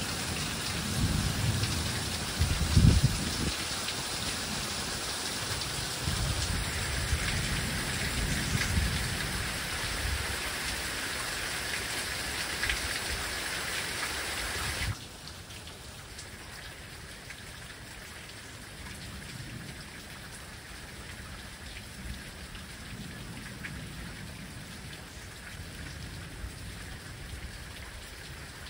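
Steady rain falling, with low rumbling swells in the first half, the loudest a sharp one about three seconds in. About halfway through, the sound drops suddenly to softer, steady rain.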